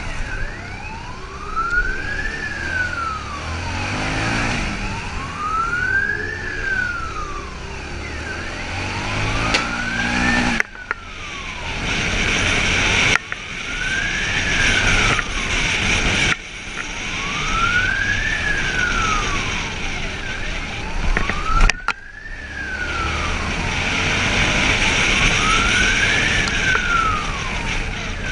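Police motorcycle siren wailing, rising and falling about every four seconds, over the motorcycle's engine revving up now and then. The sound breaks off abruptly a few times.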